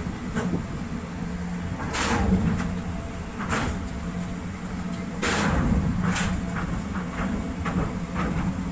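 Container-handling machinery on a container ship: a steady low hum with a series of metal clanks and knocks as a gantry crane's spreader works the hold. The loudest clanks come about two and five seconds in, with lighter knocks between and quick ticks near the end.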